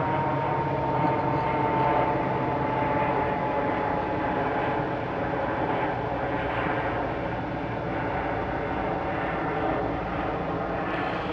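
Steady engine drone made of many layered tones, with a higher whine that slowly falls in pitch over the first few seconds.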